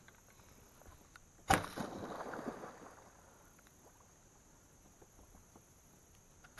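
A sudden sharp splash about one and a half seconds in, then about a second and a half of churning water: a very large fish bolting at the surface of the creek.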